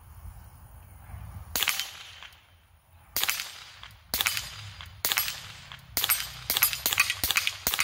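Suppressed Ruger Mark IV 22/45 Tactical .22 LR pistol with a monocore suppressor firing about ten rounds of supersonic ammunition, each shot a sharp crack. The shots come about a second apart, then quicker near the end. They are loud for a suppressed .22 because the bullets are supersonic.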